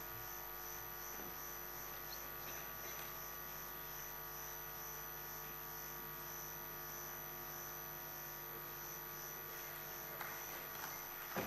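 Steady electrical mains hum from an open microphone or sound-system feed, several fixed tones held level, with a faint high whine pulsing about three times a second.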